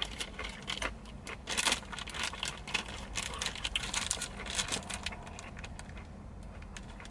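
Thin clear plastic bag of mini carrots crinkling and crackling as it is handled and pulled at with the fingers: irregular crackles, thinning out near the end.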